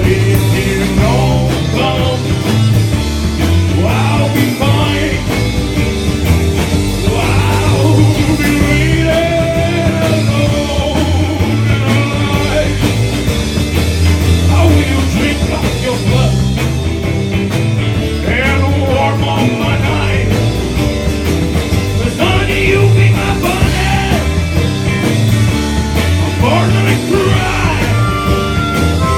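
Live country-rock band playing a passage without sung words, with a steady bass and drum beat under a bending melodic lead line.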